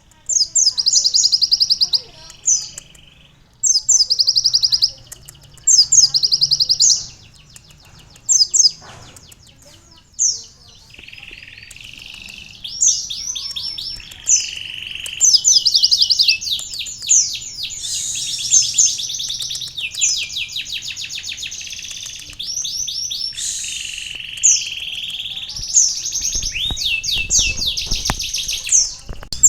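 Sunbird ('kolibri') singing a canary-style song: fast, high, trilled phrases about a second long, with short pauses at first, then running almost without a break and mixed with lower whistled notes. A low rumble comes in near the end.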